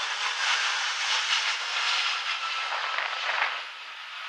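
Jet engines of an Airbus A319 airliner on landing approach: a steady rushing noise as it passes, fading about three and a half seconds in as the plane moves away.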